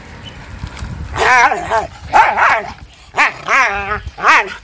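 Dog barking and yelping in protest at being sprayed with water from a hose: about five loud, wavering barks starting about a second in.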